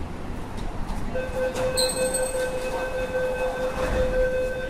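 MTR Tung Chung Line K-train moving along the platform, with a steady electric whine from its traction motors that starts about a second in, over the rumble of the train.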